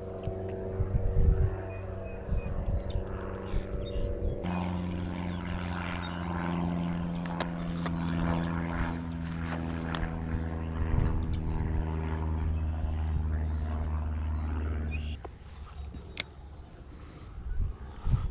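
A steady engine drone, a low hum with even overtones, drops to a lower pitch about four and a half seconds in and cuts off near the end.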